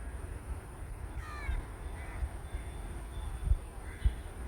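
A crow cawing a few times, harsh falling calls with the clearest about a second in, over a steady low rumble. Two dull thumps near the end are the loudest sounds.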